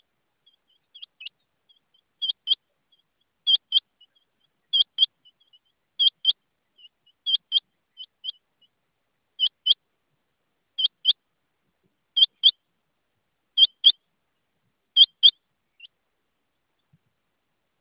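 Rain quail calling: a loud, sharp, high double note repeated about ten times, roughly every 1.3 seconds, with faint softer notes between.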